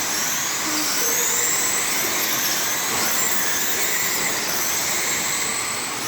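A pack of radio-controlled offroad race cars running laps, their motors making high-pitched whines that rise and fall as the cars accelerate and pass, over a steady hiss of tyres and track noise.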